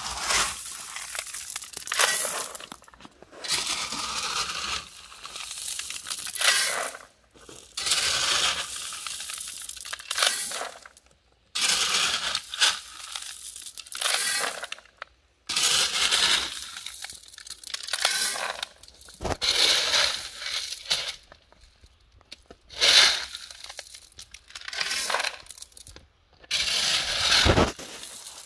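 A shovel scraping into loose crushed-stone railway ballast and the stones being tossed into a ballast hopper car, rattling and clinking, over and over, about one scoop every two seconds.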